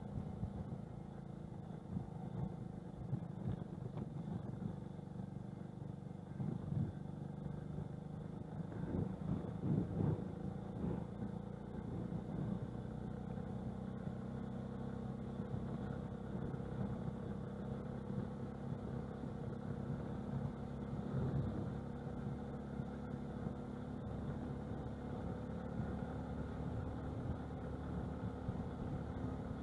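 TVS XL 100 HD moped's single-cylinder four-stroke engine running steadily while riding on a gravel road, with jolts and rattles from bumps in the road, the loudest about nine to ten seconds in.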